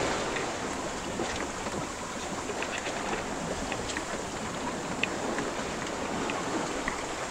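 Sea water rushing and splashing along the hull of a Hallberg-Rassy 29 sailboat under way, with wind on the microphone. The noise is steady, with scattered short ticks.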